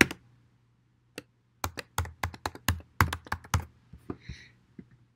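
Typing on a computer keyboard: after a short pause, a quick run of about a dozen keystrokes starting about a second in, then a few scattered taps.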